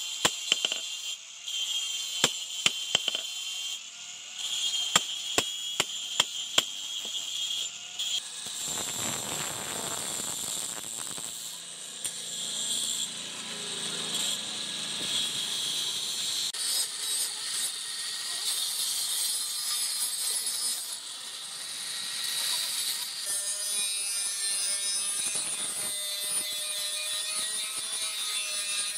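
Separate hammer blows on a spring-steel knife blade lying on a stake anvil for the first several seconds. Then an electric angle grinder runs and grinds the blade's steel, a steady high whine with a rasping grind.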